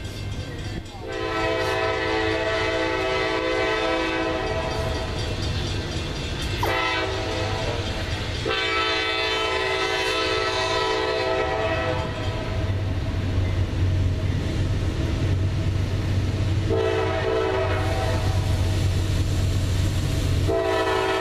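Air horn of an approaching CSX GE C40-8W diesel locomotive sounding the grade-crossing signal: two long blasts, a short one, then a long one starting near the end. The locomotive's engine rumble grows louder through the second half.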